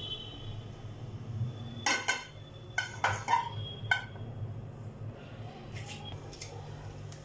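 Metal cookware clinking on a gas stove: about six sharp clinks in the first four seconds, some ringing briefly, with a steady low hum underneath.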